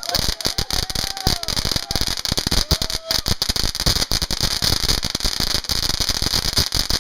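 A firework going off at close range: rapid, irregular crackling pops over a steady hiss, stopping abruptly at the end.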